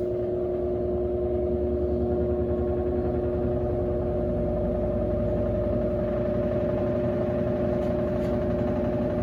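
Electrolux LAC16 top-loading washer running on a 1/4 hp WEG motor, spinning the drum with a steady hum of several held tones over a pulsing low rumble.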